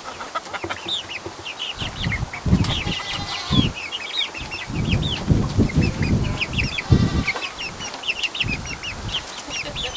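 Chickens clucking and chirping, with many quick short calls. Low rumbling thumps join in from about two seconds in.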